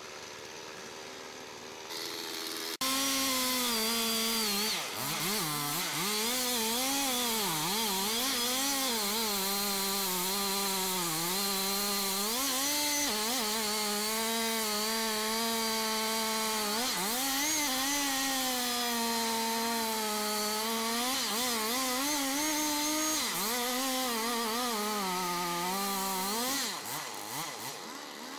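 Large two-stroke chainsaw with a long bar cutting through the trunk of a big old tree in a felling cut. Its engine note keeps sagging and recovering under load as the chain works through the wood. It comes in loud about three seconds in after a quieter stretch, and eases off briefly near the end.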